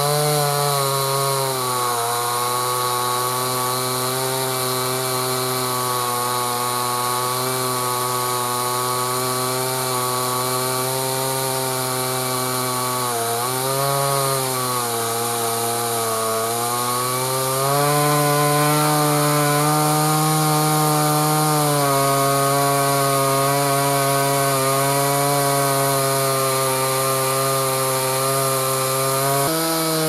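Gasoline chainsaw mounted in an Alaskan chainsaw mill running at high revs as it rips lengthwise through a log. Its engine note dips and recovers near the start and again about 13 seconds in, and it runs a little louder from about 18 seconds on.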